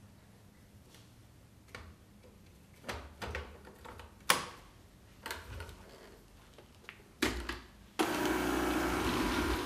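Plastic clicks and knocks as the brush roller of a Kärcher K 55 cordless electric broom is taken out and snapped back into its housing, the sharpest snap about four seconds in. About eight seconds in the broom is switched on and its motor and spinning brush start suddenly and run steadily.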